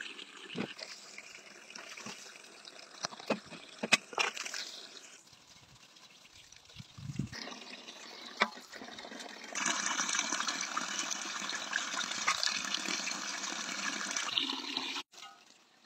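Water pouring in a steady stream into a metal basin of water, loudest over the last five seconds and stopping suddenly near the end. Before it come scattered knocks and clatters as roots are handled in a woven basket.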